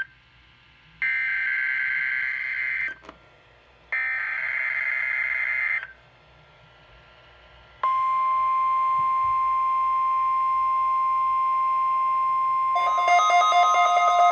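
NOAA Weather Radio SAME header: two bursts of warbling data tones, each about two seconds long, with short quiet gaps between them. About eight seconds in comes the steady 1050 Hz weather-radio warning alarm tone. Near the end, a louder pulsing pair of tones joins over it.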